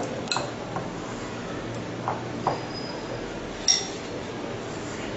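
A few sharp clinks with a brief ring as a hand knocks against a glass mixing bowl while potato pakora batter is worked by hand. The loudest clink comes about two-thirds of the way through.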